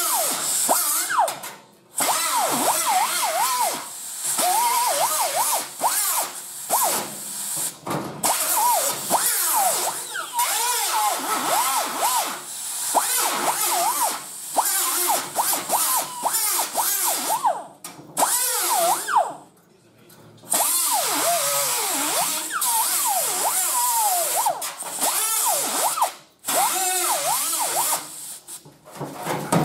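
Die grinder cutting thin, rusted sheet steel from a car's trunk, its whine wavering up and down in pitch as the load changes, stopping briefly a few times.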